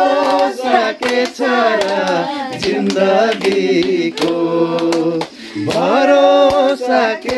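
Several women singing a song together in Nepali, with hand clapping in time.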